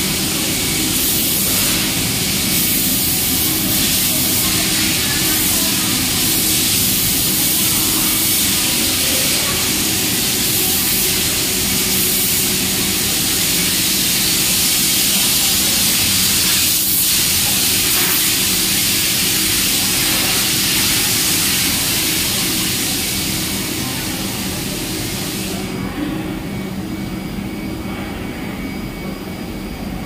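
Steady, loud rush of equipment cooling fans in a room of UPS and electrical panels, over a low electrical hum with a few steady tones. Near the end the high hiss drops off sharply, leaving the lower hum.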